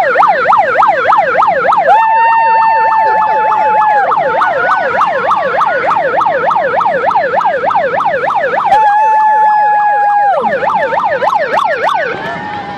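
Electronic siren yelping: a rapid rising and falling wail, about three to four sweeps a second, twice joined by a steady high tone held for a second or two, fading near the end.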